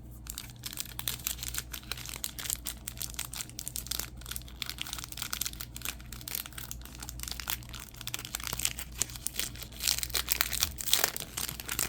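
Trading cards and their foil pack wrapper being handled: steady crinkling and crackling with many small clicks, busier near the end.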